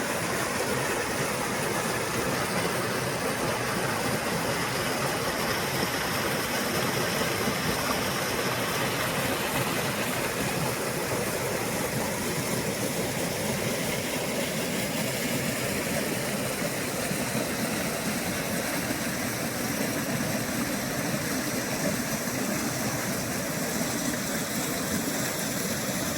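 Small forest stream babbling and gurgling steadily, an even rush of running water.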